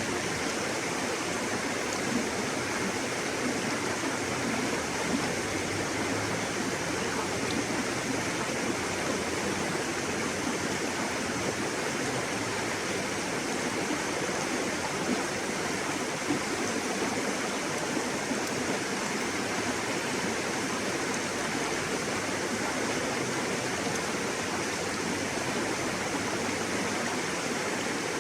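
River water rushing and splashing steadily over rocks, a constant even rush with small splashes now and then.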